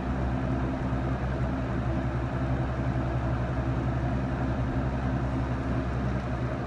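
Vintage Frigid three-speed push-button box fan running on high: a steady motor hum with the even rush of air from the blade.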